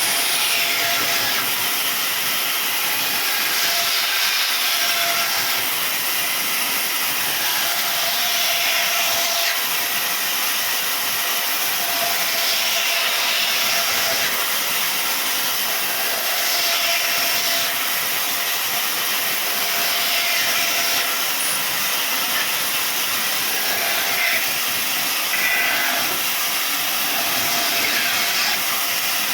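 Sawmill power saw (aara machine) cutting wood: a steady, loud hissing noise.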